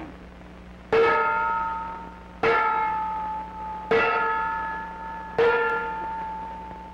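Hammer striking a steel frying pan four times, about a second and a half apart, each blow ringing out like a bell and slowly dying away. The steel pan takes the blows without breaking.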